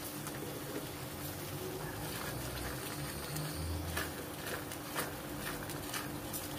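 Soya chunks being stirred with a spatula through thick, simmering masala gravy in a steel kadhai: wet stirring and bubbling, with scattered light clicks of the spatula against the pan.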